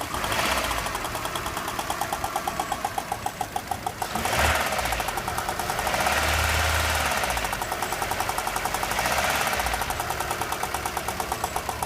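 Vehicle engine running in neutral and revved up several times with the gas pedal, with an even beat about five times a second through the idle.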